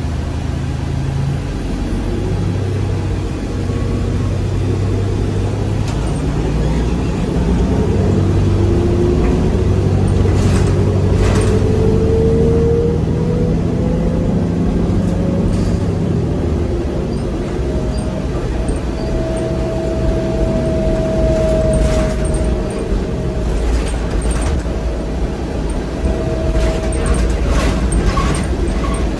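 Inside the cabin of a 2009 New Flyer DE60LFR hybrid articulated bus under way: the Cummins ISL six-cylinder diesel hums steadily while a whine from the Allison EP50 hybrid drive rises slowly in pitch as the bus gathers speed, then holds. A few short rattles and knocks come from the body, around a third of the way in and again near the end.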